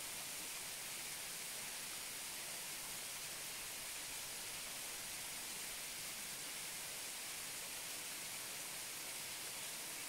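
Waterfall heard close up: a steady, even hiss of falling water, bright and high rather than deep, with no change in level.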